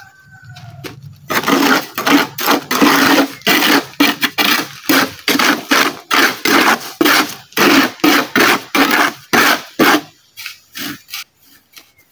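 Steel trowel scraping across a concrete slab as cement mortar is mixed by hand, in quick repeated strokes of about two to three a second that stop about ten seconds in.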